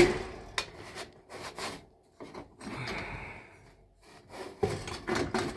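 Sheet-metal electric heat strip assembly being slid out of an air handler cabinet: metal scraping and rubbing, with a sharp knock at the start, a few more knocks near the end, and one longer scrape in the middle.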